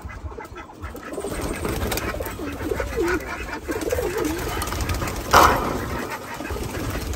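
Caged white doves cooing, a few low wavering calls about three to four seconds in. A short sharp rustling burst comes a little past five seconds.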